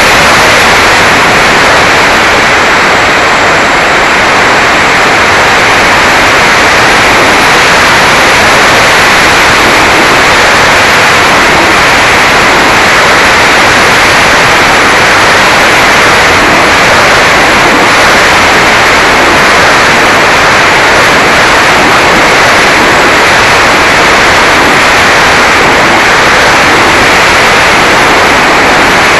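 Loud, steady rush of wind and motor noise on the onboard action camera's microphone of a Mini Talon RC plane in flight, with no pitch changes.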